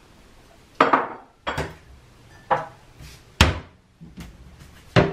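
Dishes (a plate, bowl and cup) knocking and clinking as they are handled at a kitchen cupboard: about six sharp knocks, each ringing briefly. The loudest comes about three and a half seconds in.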